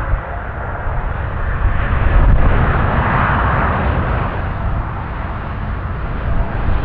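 Boeing 777-200 jet airliner's engines rumbling loudly, swelling to a peak about three seconds in and easing off again.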